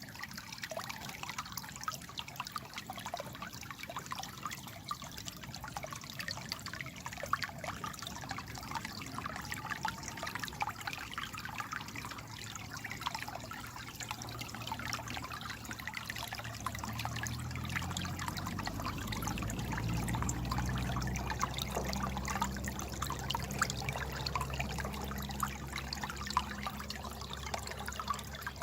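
Water trickling and babbling in a small stream, a steady run of small splashes. A low rumble swells up in the second half and eases off near the end.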